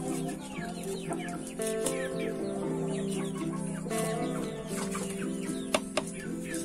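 Chickens clucking, with many short falling calls, over background music with sustained notes; a sharp tap near the end.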